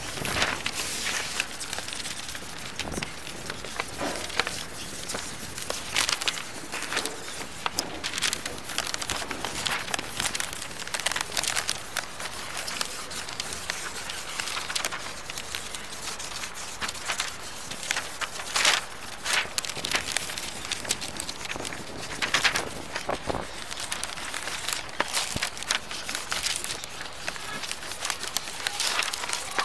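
Drawing on paper: a drawing tool scratching and rubbing across the sheet, with paper rustling, giving a dense run of scratchy crackles.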